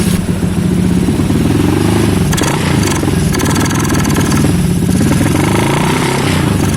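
Bored-up Honda Vario 125 scooter's single-cylinder engine, fitted with a 61 mm Moto1 piston kit, running smooth on its first start after the rebuild. It idles steadily, then rises and falls in revs a few times.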